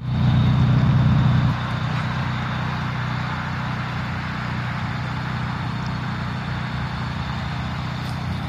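Exhaust of a 1990s Honda Civic sedan at a steady idle, heard at the tailpipe. It is louder for the first second and a half, close to the exhaust tip, then steady and a little quieter.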